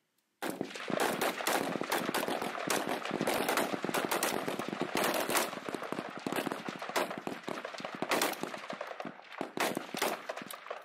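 Many rifles firing at once on a rifle range: a dense, continuous crackle of overlapping shots that starts suddenly about half a second in.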